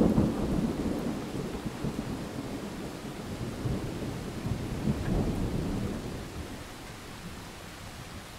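Thunder rolling over steady rain: a loud clap at the start rumbles on, swells again about five seconds in, then dies away, leaving the hiss of rain falling on foliage.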